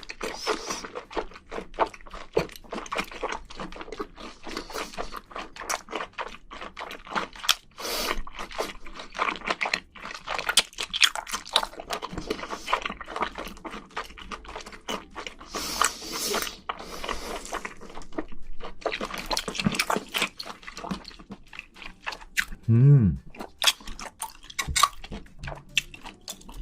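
Close-miked wet chewing, lip smacking and slurping of saucy spicy braised seafood, a steady run of quick moist clicks. A short hummed "mm" about three-quarters of the way through.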